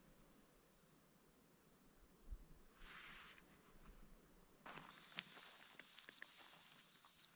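High, thin hazel grouse whistles, as used in calling grouse with a decoy whistle. A fainter whistle with a short flutter comes near the start. About five seconds in comes a much louder, long whistle that rises, holds and falls away.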